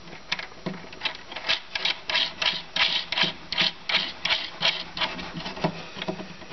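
Speaker wire being worked through a hole in a wooden subwoofer enclosure panel, the cable and hand rubbing against the wood in a quick series of scratchy strokes, about three a second.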